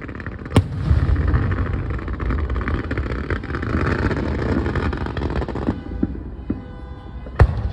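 Fireworks going off: a sharp bang about half a second in, then a dense crackling hiss for about five seconds, and a second sharp bang near the end.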